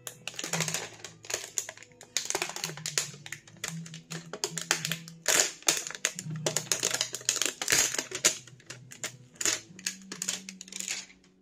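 Clear plastic wrapping being peeled and crinkled off a small cardboard product box: a busy run of irregular crackles and rustles, in uneven bursts.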